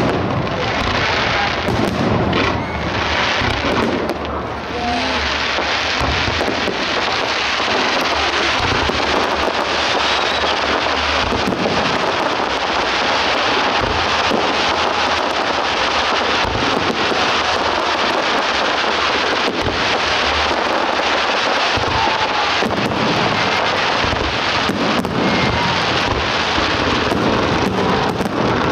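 Fireworks display: a dense, unbroken stream of bangs and crackles from bursting aerial shells and ground fountains.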